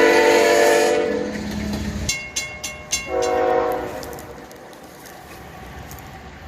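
Third-generation Nathan Airchime K5HL locomotive air horn sounding a chord of several notes, which cuts off about a second in. Four quick high-pitched rings follow about two seconds in, then one short horn blast, after which only a quieter train rumble remains.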